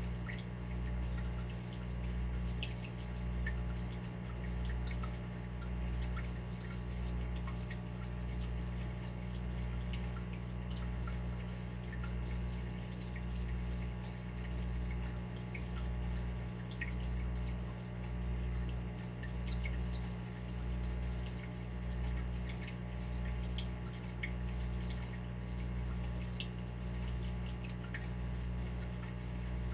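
Water dripping: irregular single drops ticking over a steady low hum that swells and fades in a slow, even rhythm.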